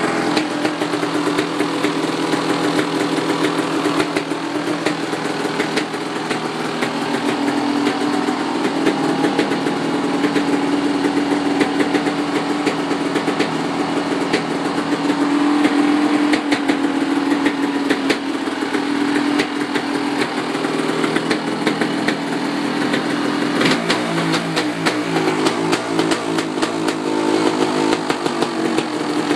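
1989 Kawasaki KX500's two-stroke single-cylinder engine idling steadily. Its note wavers up and down in pitch for a few seconds near the end.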